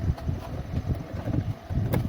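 Uneven low rumble of wind noise on the microphone, with one sharp click near the end.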